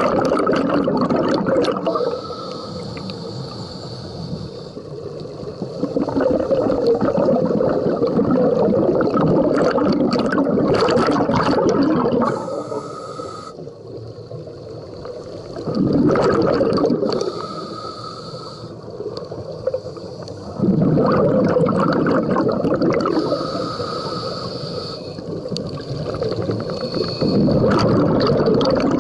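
Scuba diver breathing through a regulator underwater. Long bursts of exhaled bubbles, about five of them, alternate with quieter inhalations that carry a thin, steady regulator hiss, one breath every several seconds.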